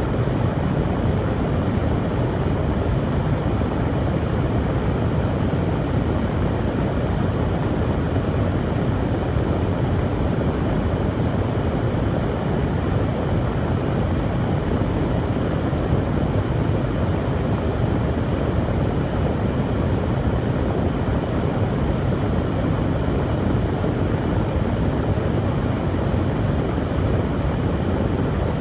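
Hair dryer running continuously: a steady, even rush of blown air and motor, fuller at the low end, with no change in speed.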